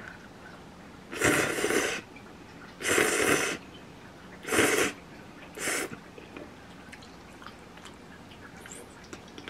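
A person blowing twice on hot ramen noodles held up on chopsticks to cool them, then slurping the noodles in two short pulls.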